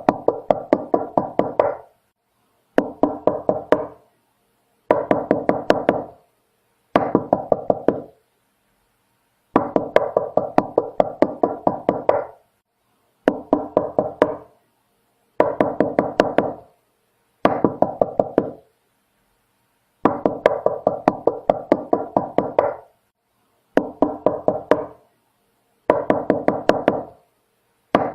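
Knocking on a door, in repeated volleys of quick knocks at about five a second. Each volley lasts one to three seconds, with short pauses of about a second between them.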